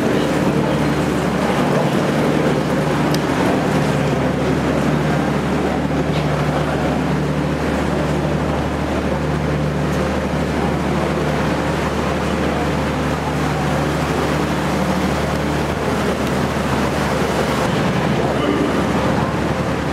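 Excursion boat's engine running with a steady low drone, under a stone-vaulted canal tunnel.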